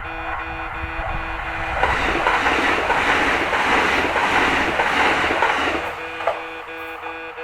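Japanese level-crossing alarm ringing its rapid, evenly repeated electronic ding while an electric train passes, the train's rushing noise swelling about two seconds in and drowning the bell for about four seconds before the bell comes through again.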